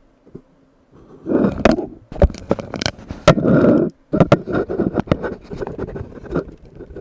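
Sound effect of a wild beast growling and roaring in loud, rough bursts, starting about a second in, with a short break near four seconds.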